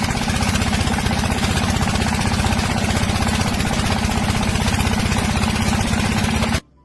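A motor running steadily with a fast, even beat, cutting off suddenly near the end.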